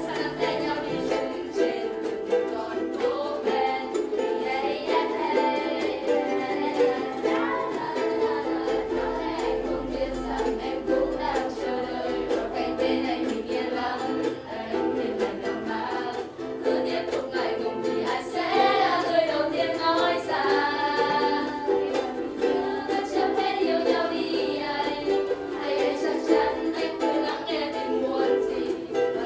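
A group of ukuleles strummed and plucked in a cheerful, upbeat tune with a steady strummed rhythm.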